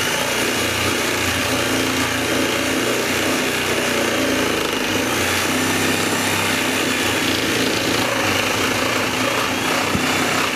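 Corded reciprocating saw (Sawzall) running steadily as it cuts into the cabin's wooden log beneath a window sill.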